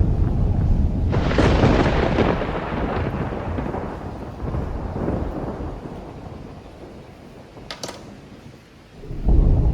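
A thunderclap: a sharp crack about a second in that rolls into a rumble, fading away over several seconds. A new loud, low rumble starts near the end.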